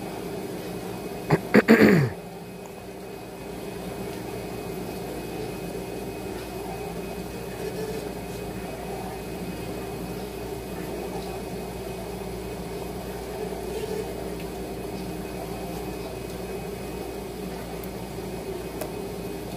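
Steady hum of machinery with a couple of steady low tones. About a second and a half in comes one brief, loud vocal sound that falls sharply in pitch, like a throat clearing or grunt.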